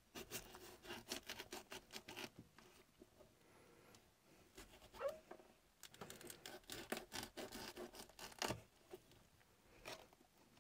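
Kitchen knife cutting the core out of a boiled, softened cabbage half on a cutting board: faint quick cuts and scrapes in two spells, one in the first two seconds and another from about five and a half to eight and a half seconds.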